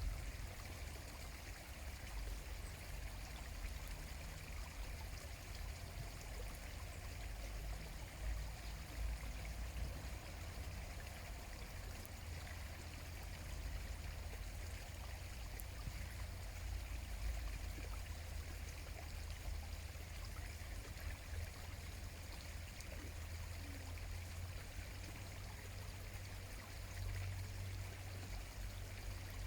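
Steady running water, like a small stream or weir, with a low rumble beneath it.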